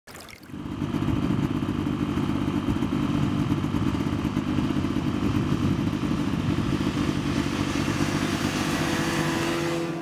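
Snowmobile engine running steadily as the machine drives over snow. It fades in about half a second in and dies away near the end.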